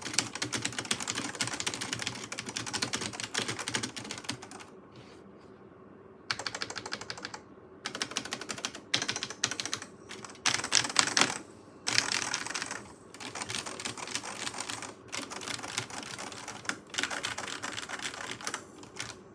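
Carrera de Luxe MD electric typewriter with buckling-spring keys (PBT keycaps, 120 g springs, stock and unlubricated) being typed on in fast bursts of sharp clicking keystrokes. A brief pause comes about five seconds in, and shorter gaps break up the typing later.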